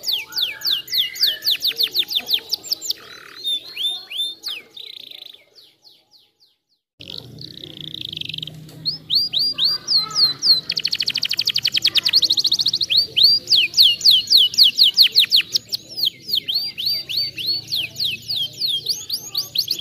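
Domestic canary singing: long trills of rapidly repeated falling whistled notes, with a very fast rattling roll in the middle. The song cuts out briefly about six seconds in, then starts again.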